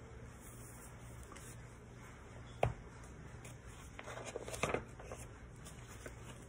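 A hardback picture book being handled and its page turned: soft paper rustles, one sharp tap a little before the middle, and more rustling about two-thirds in along with a brief soft murmur. A low steady room hum lies under it all.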